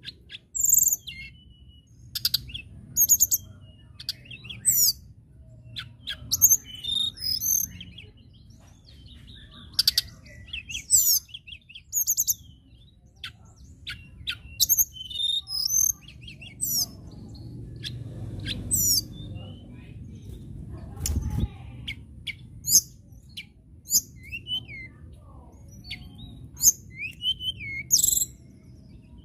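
Blue flycatcher (tledekan) singing: a run of short, high, rapid twittering phrases mixed with curved whistled notes, repeated every second or two. A faint low rumble sits underneath, with a single low thud about 21 seconds in.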